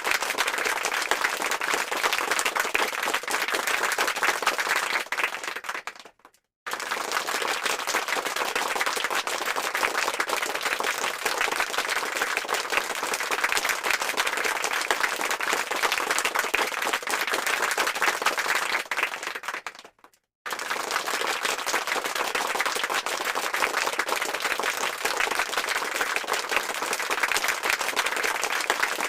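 Applause sound effect: a crowd clapping densely and steadily. It fades and drops to silence briefly about six seconds in and again about twenty seconds in, each time starting again abruptly at full strength, as the effect is looped.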